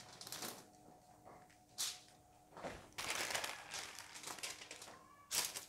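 Wax paper rustling and crinkling in short, faint bursts as sheets are laid over aluminium foil and smoothed flat by hand.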